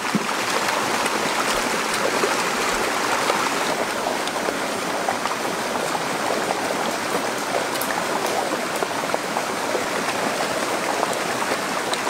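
A stream running over rocks, a steady rush of water.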